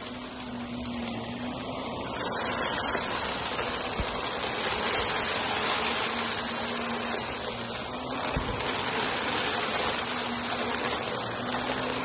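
Shark Navigator upright vacuum running, its steady airflow rushing as it sucks up a pile of glittery debris from carpet tiles with a light crunch. It gets somewhat louder about two seconds in.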